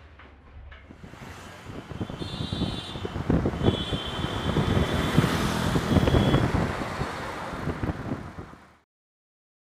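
City road traffic: cars and scooters passing, with a couple of short high-pitched tones over the traffic. It cuts off suddenly to silence near the end.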